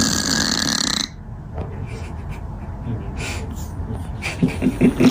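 Noisy sleeper's breathing: a loud hissing breath out for about a second and a half, then quieter rough breaths, with a quick run of low pulses near the end.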